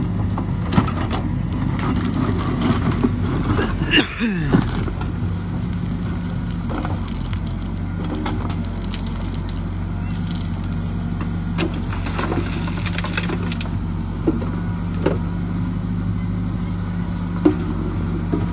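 Case 770 backhoe loader's diesel engine running steadily as its backhoe bucket digs into stony earth and tips it into a tractor trolley, with scattered clatters and knocks of rocks and soil. About four seconds in, a note sweeps briefly downward.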